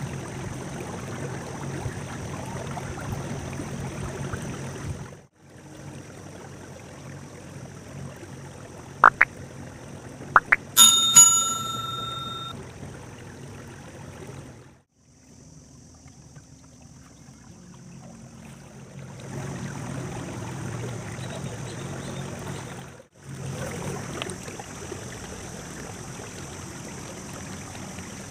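Steady ambient noise of water and wind around a small boat at rest. About nine seconds in there are a few sharp clicks, then a small bell rings once and fades over a second or two.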